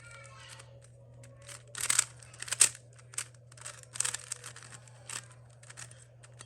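Plastic puzzle cube being handled and turned: an irregular run of sharp plastic clicks and clacks, loudest around two to three seconds in.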